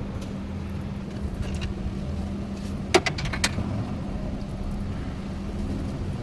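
Car engine idling steadily, with a few sharp metallic clicks about halfway through.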